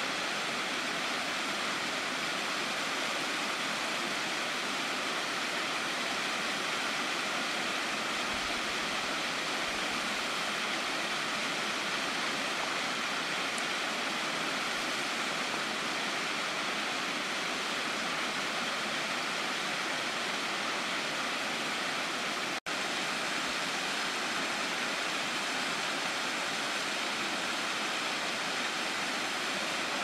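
Mountain waterfall pouring down a rock face: a constant, even rush of falling water, with a split-second dropout about three-quarters of the way through.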